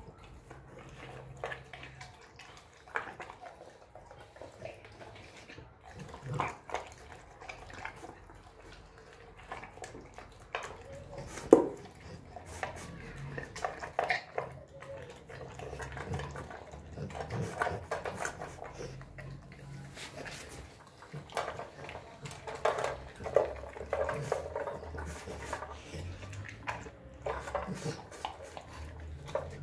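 Rottweiler eating raw meat from a stainless steel bowl: wet chewing and slurping with irregular clicks and knocks of teeth and food against the metal bowl. The loudest is a single sharp knock a little before halfway.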